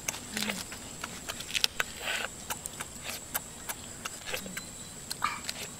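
Cooked crab being eaten by hand: a run of sharp wet clicks and cracks as the shell is pulled apart and chewed, with a short slurp about two seconds in and another near the end.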